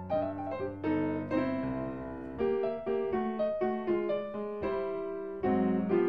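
Background music: a melody of struck, pitched notes, several a second, each ringing and fading.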